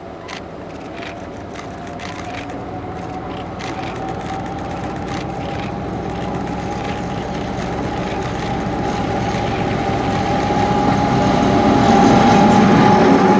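A train approaching and drawing close, growing steadily louder, with a steady high whine over the rumble.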